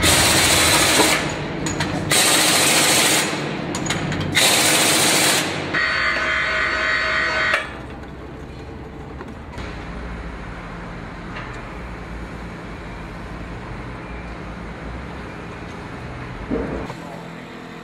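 Construction machinery: three loud hissing blasts about two seconds apart, then a brief mechanical whine, then a much quieter low steady hum.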